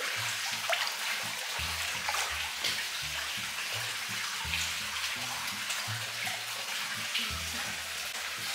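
Swimming-pool water lapping and sloshing: a steady watery hiss with a few faint splashes.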